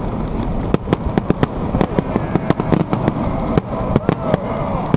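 Aerial fireworks display: a rapid, irregular series of sharp bangs and crackling pops, several a second, over steady background noise.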